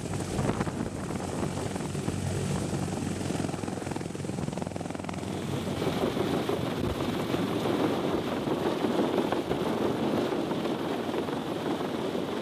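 Sikorsky CH-53E Super Stallion heavy-lift helicopter's rotors and turbine engines running steadily while it hovers and flies with an armoured vehicle on an underslung sling load. The sound grows brighter about halfway through.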